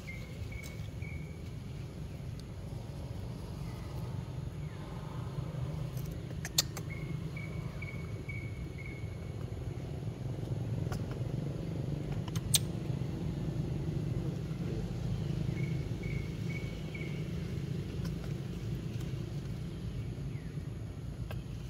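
Outdoor ambience: a steady low rumble, with a bird's short call of four or five quick high notes heard three times, and two sharp clicks.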